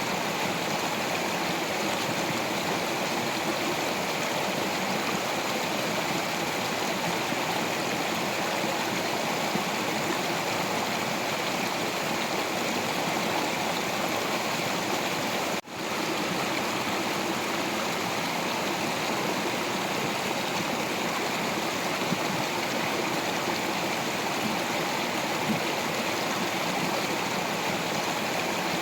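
Stream water flowing over rocks, a steady rushing and gurgling that drops out for an instant about halfway through.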